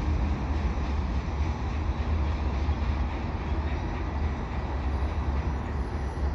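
CN manifest freight train rolling away down the line: a steady, even rumble of cars and wheels on the rails.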